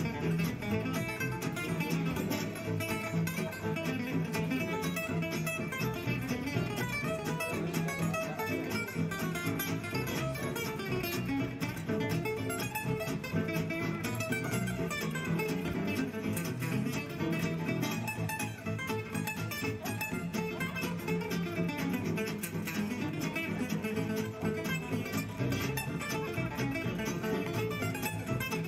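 Background music: a plucked acoustic guitar playing steadily.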